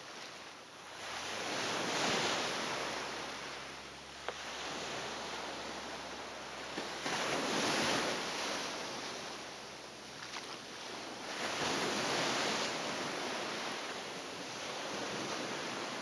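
Small ocean waves breaking and washing up a sandy beach, three times, each surge swelling and fading over a few seconds.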